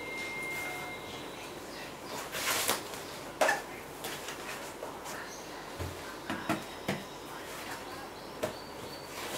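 A cloth bag being handled: brief rustles and a few light knocks as things are taken out of it, over a low steady hiss.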